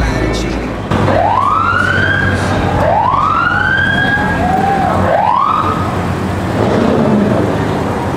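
A siren sounding in three rising-and-falling wails, each climbing quickly and sliding back down more slowly, the last one shorter. Under it is the low rumble of cars moving past.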